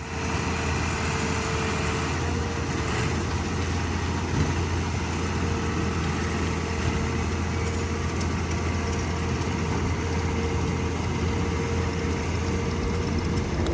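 Heavy farm machine's engine running steadily at a constant speed, with a low hum and a steady higher whine.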